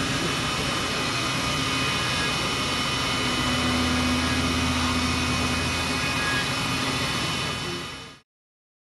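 Steady din of running CNC machine tools, several fixed whining tones over a low hum; it fades out about eight seconds in.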